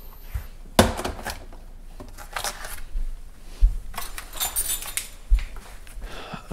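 Kitchen handling noises: scattered knocks and a few dull thuds as things are picked up and moved, with a short spell of light metallic rattling about four to five seconds in.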